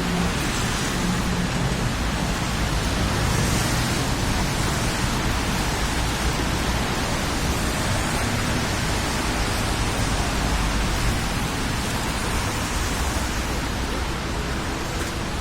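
Wind buffeting the microphone: a steady rushing noise with a low rumble that rises and falls.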